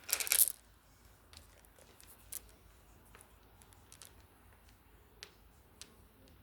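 A short clatter of small hard objects about a split second in, then faint scattered clicks and taps.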